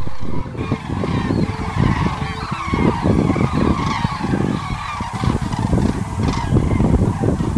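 Common cranes in large flocks calling, many trumpeting calls overlapping at once as they fly in to their roost, over a low, uneven rumble.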